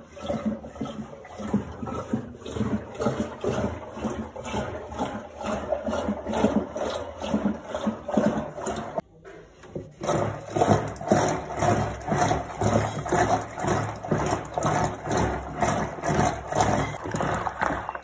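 Curds churned by hand in a clay pot with a rope-spun wooden churning stick: rhythmic sloshing and swishing at about two strokes a second, as butter separates on top. The churning breaks off briefly about halfway through.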